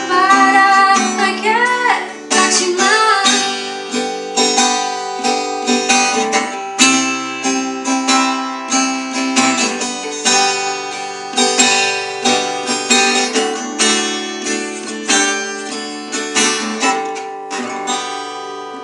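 Acoustic guitar playing the closing bars of a gospel hymn, with plucked chords about once a second. A held sung note with vibrato dies away in the first few seconds.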